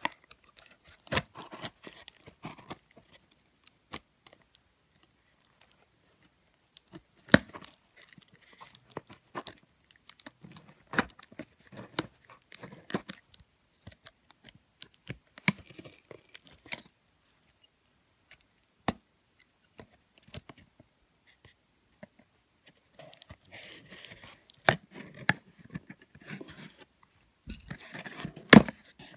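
A knife blade scraping and slicing through packing tape on a cardboard box, with scattered sharp clicks and short scratchy scrapes separated by quiet gaps. Near the end, denser rustling and scraping as the cardboard flaps are pried open.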